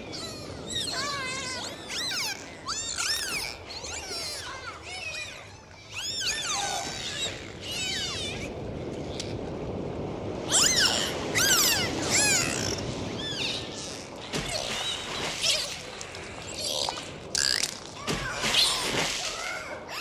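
Dolphins whistling underwater: many overlapping rising and falling whistles with a few sharp clicks, loudest about halfway through and again near the end.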